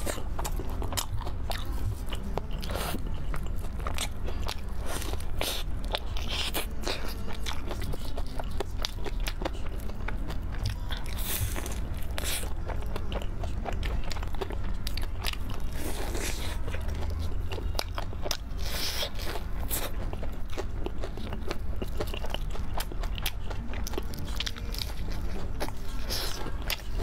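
Close-miked eating of crispy fried food: a long run of crunchy bites and chewing, many sharp crunches in quick succession over a steady low hum.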